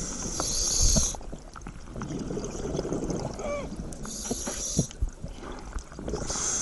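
Scuba diver breathing through a regulator underwater: a hissing inhale, then a long bubbling exhale, a second short inhale about four seconds in, more bubbling, and another inhale starting near the end.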